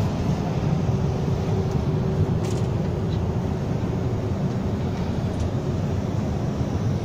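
Steady low rumble and hiss of a Virgin Trains Class 390 Pendolino electric train heard inside its passenger coach, with a faint steady hum running through it.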